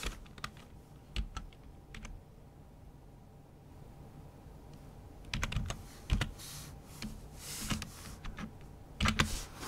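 Typing on a computer keyboard: a few separate keystrokes, a pause of about three seconds, then short runs of keystrokes in the second half.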